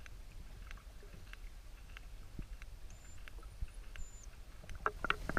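Underwater sperm whale echolocation clicks, sharp and regular at about two a second over a low water rumble, with louder clicks bunched together near the end.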